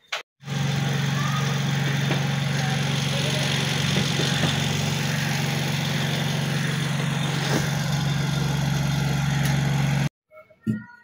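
Steady machine hum: a loud low drone with a hiss over it, starting suddenly and cutting off suddenly near the end.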